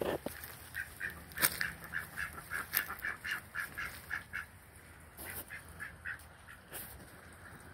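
Domestic ducks calling in a quick run of short, same-pitched quacks, about four a second, fading out near the end. A few sharp clicks are heard among the calls, the loudest about one and a half seconds in.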